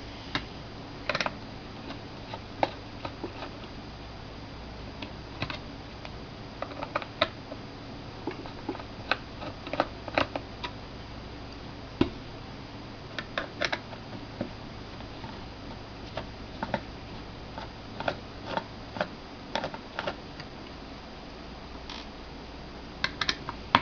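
Small Phillips-head screwdriver loosening the screws of a laptop hard-drive's metal case: irregular light clicks and ticks of metal on metal, over a faint steady hum.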